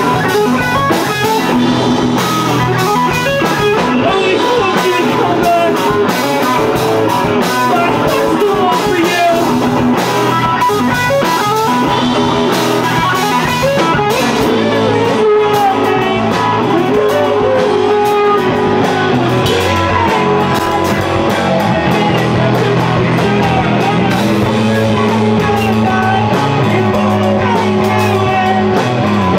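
Rock band playing live: guitar over a drum kit.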